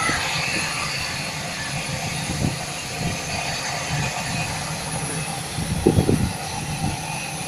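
Distant jet airliner's engines running on the runway: a steady rumble and hiss with a faint high whine, with some low rumbling gusts about six seconds in.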